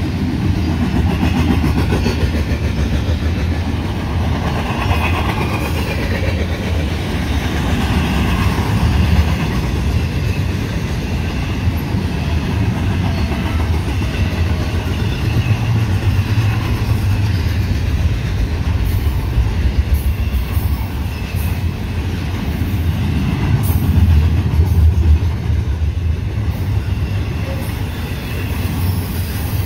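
Double-stack intermodal freight train's container-laden well cars rolling past: a steady rumble of steel wheels on the rails.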